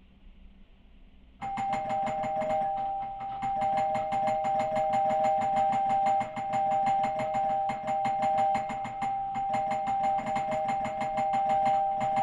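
Apartment doorbell ringing nonstop, starting about a second and a half in: two steady chime tones with a fast, rattling stream of clicks, the button kept pressed over and over.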